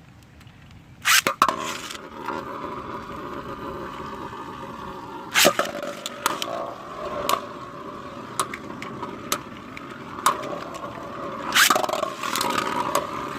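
3D-printed beyblades launched into a plastic stadium: sharp clacks about a second in, again about five seconds in and near the end, then a steady whirring scrape as the tops spin, with small ticks as they knock together.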